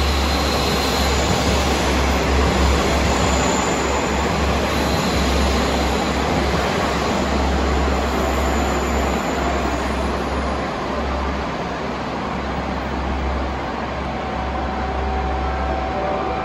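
Diesel railcar running through the station: a steady, loud rail rumble over a deep engine drone, easing slightly in the second half.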